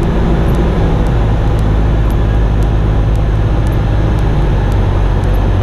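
Cessna 172's four-cylinder piston engine and propeller droning steadily inside the cabin in flight, under a hiss of rushing air.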